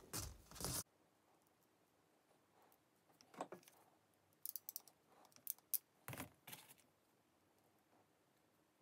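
Faint bench handling sounds: a power cord rubbed and shifted at the start, then scattered small sharp clicks and a brief rustle as a crimping tool and wire terminal are handled.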